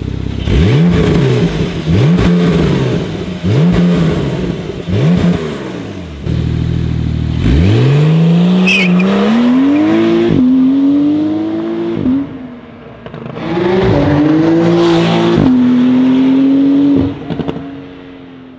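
Porsche 992 Carrera S twin-turbo flat-six through a Fi valvetronic catback exhaust, blipped four quick times at a standstill. After a short idle it accelerates hard away, the pitch climbing and dropping back at each upshift, and fades as the car pulls off near the end.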